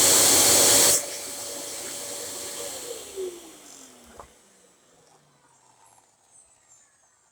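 Dyson DC07 upright vacuum cleaner running with a loud rush of air and a steady motor whine. About a second in the rush drops abruptly; a couple of seconds later the whine glides down and fades as the motor spins down.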